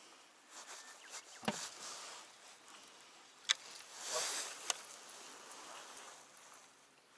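Faint handling sounds of fishing tackle in a boat: three sharp clicks or knocks, about two seconds apart, with soft rustling between them.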